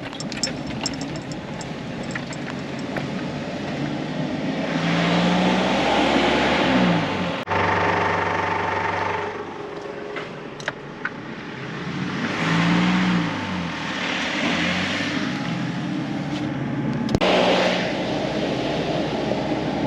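A 4WD's engine pulling up a steep sealed climb in low gear, its revs rising and falling a few times.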